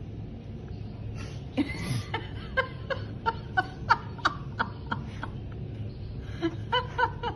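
A person laughing quietly in short, high-pitched giggles, about three a second, from about a second and a half in, with a few more near the end.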